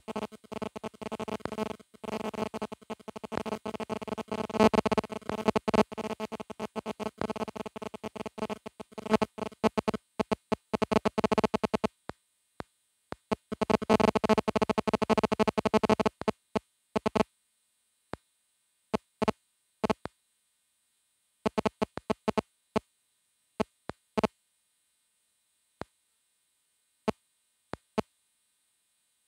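Background music, continuous for about the first sixteen seconds, then breaking up into short stuttering snippets with dead silence between them.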